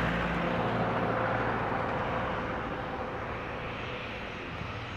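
Fixed-wing aircraft engine noise, a steady rushing sound with a faint hum, fading gradually as the aircraft moves away.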